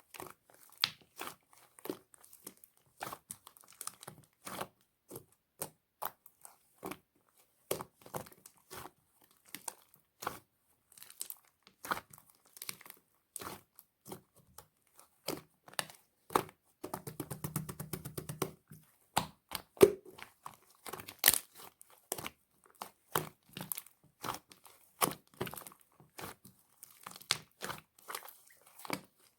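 Mint-coloured slime being squeezed and poked by hand, giving an irregular run of small wet clicks and pops, with a quick rattle of clicks about seventeen seconds in.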